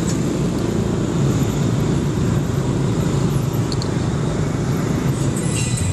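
Motorcycle engine running at a steady cruise with road and wind rumble, heard from the pillion seat.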